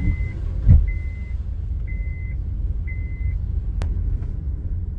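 A vehicle's reversing beeper sounding a high, even beep about once a second over a low vehicle rumble, stopping after about three seconds. A dull thud about a second in and a sharp click near the end.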